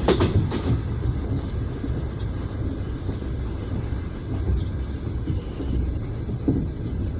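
Passenger train wheels heard from inside an open-plan sleeper carriage: a quick run of clacks over a rail joint at the start, then a steady low rumble as the carriage rolls on, with a faint knock near the end.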